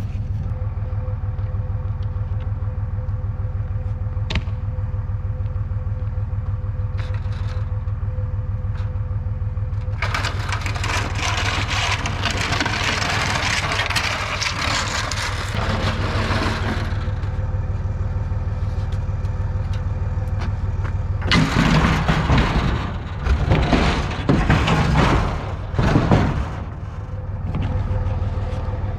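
Pickup truck engine idling steadily. About ten seconds in, a rush of noise swells and fades over several seconds. Near the end comes a run of loud clunks and knocks, like a heavy item being handled and loaded.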